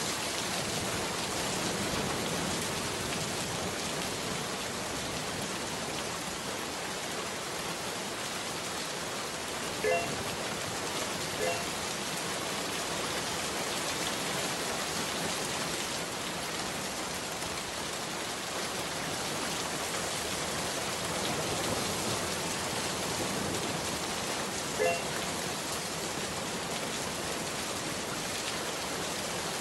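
A steady, even hiss throughout, with a few brief faint pitched chirps: two close together, then one more later.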